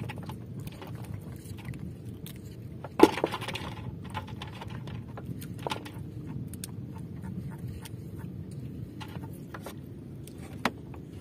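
Knocks and small clicks of fishing gear being handled against a small wooden outrigger boat, over a steady low background noise; one sharp knock about three seconds in is the loudest, with lighter ones later.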